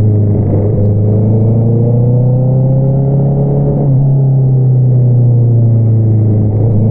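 Honda CBR650R's inline-four engine through an Akrapovič single-outlet exhaust, pulling under acceleration with its note rising steadily, dropping sharply at an upshift about four seconds in, then climbing again near the end.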